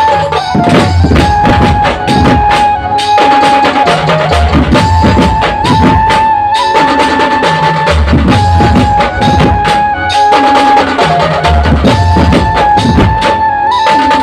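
Dhumal band playing loud music: dense drumming under a high, long-held melody line that repeats in phrases every few seconds.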